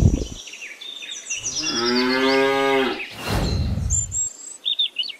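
A cow moos once, a pitched call of about a second and a half, and is followed by about a second of low rushing noise. A low thump comes at the very start, and birds chirp high above.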